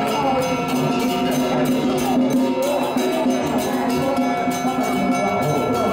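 Music: a melody over a steady percussion beat.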